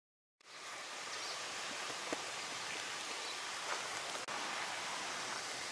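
Steady outdoor background hiss with a few faint ticks, fading in at the start and cutting out briefly about four seconds in.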